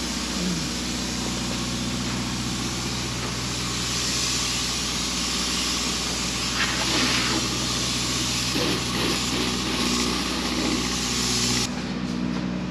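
Steady hum of running equipment with a loud hiss of spray foam insulation being sprayed, the hiss stronger in the middle stretch; the highest part of the hiss drops away abruptly near the end.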